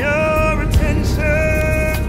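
Music with a singer holding two long notes, one at the start and another from about the middle to the end.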